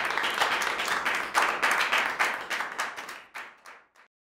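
Applause from a small group of listeners: dense clapping that thins to a few scattered claps and stops near the end.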